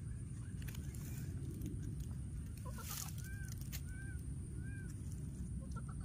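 Baby monkey giving three short, high, arched calls about halfway through, over a steady low rumble, with a brief rustle just before the calls.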